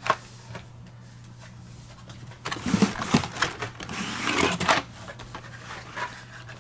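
Blister-packed Hot Wheels cars being handled: the plastic bubbles and card backs rustle and clack against each other for about two seconds in the middle, after a single click at the start. A low steady hum runs underneath.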